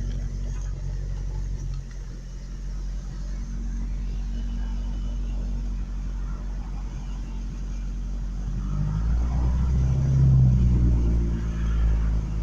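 Truck engine idling steadily, then revved up about nine seconds in and settling back down near the end. The truck keeps stalling when put in gear, which the owner suspects is a fuel problem, perhaps being almost out of gas.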